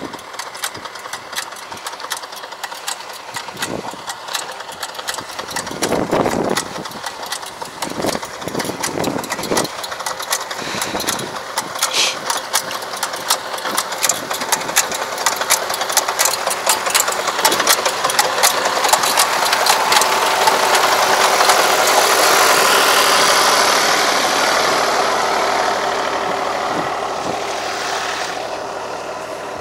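Farm tractor engine running as it pulls a roller down the field rows, growing louder as it comes close about two-thirds of the way through, then easing off. Clicks and low knocks sound close to the microphone over it.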